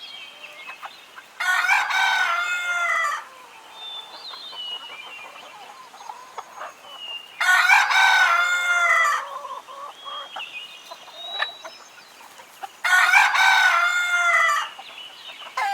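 Rooster-crow ringtone: a rooster crows three times, about five and a half seconds apart, each crow ending in a falling tail. Faint clucks and small bird chirps come between the crows.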